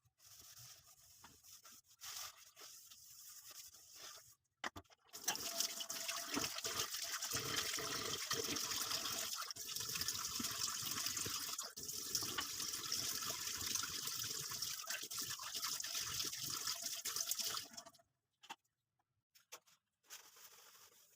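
Water running from a tap into a kitchen sink, a steady hiss that starts about five seconds in and stops suddenly some thirteen seconds later. Faint small handling sounds come before it.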